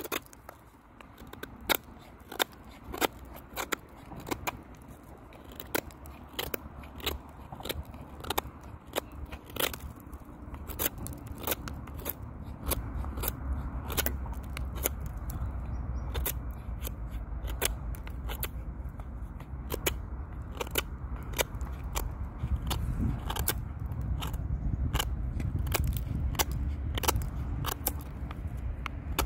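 Folding knife blade carving a wooden stick: many quick, irregular scraping cuts with small cracks as chips break off. A low rumble comes in about halfway through.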